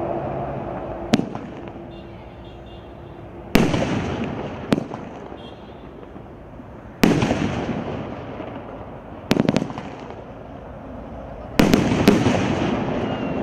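SU 002-84 wedding fireworks cake (84 shots, 30 mm and 63 mm) firing single shells: three times a short sharp launch crack is followed about two seconds later by a loud aerial burst that rumbles and echoes away. The last burst comes as two bangs close together.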